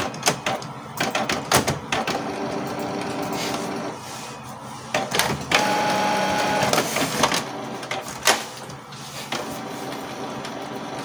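Canon MP287 inkjet printer running through its mechanism on a test run after repair for error P03 and error 6000: a string of clicks, then motor and gear whirring, with a louder whine for a second or so in the middle before it settles to quieter running.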